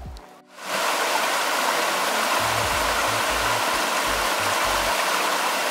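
Mountain stream rushing over boulders in a small cascade: a loud, steady rush of water that starts abruptly about half a second in, with irregular low thumps underneath.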